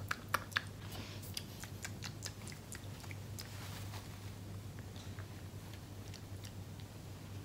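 Quiet mouth clicks and chewing of a jelly bean, a string of sharp clicks over the first three seconds, then soft rustling of a paper tissue held to the mouth. A steady low hum runs underneath.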